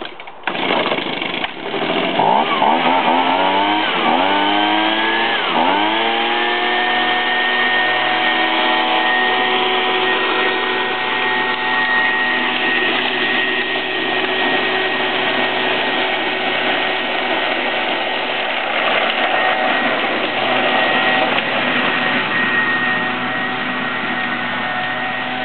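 Handheld petrol leaf blower starting up: it catches after about a second and a half, revs up sharply three times, then runs steadily at a constant high speed.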